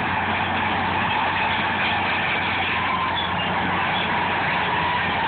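Old crawler bulldozer's diesel engine running steadily as the machine drives forward on its tracks, a constant low drone under an even mechanical noise.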